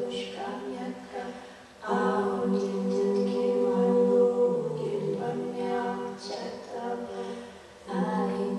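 Two women's voices singing a cappella together in long held notes. The sound fades briefly and swells back in with a new phrase at about two seconds, and again near the end.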